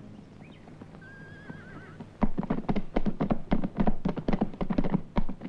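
Several horses' hooves striking dry dirt in a quick, uneven beat, starting about two seconds in. Before that there is only a faint, short warbling call.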